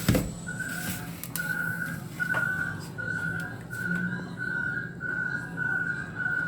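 An electronic beep repeating steadily at one unchanging pitch, about one and a half beeps a second, over a low hum.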